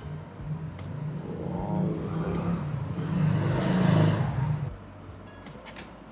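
Motorcycle engine running, growing louder for about four seconds and then cutting off suddenly.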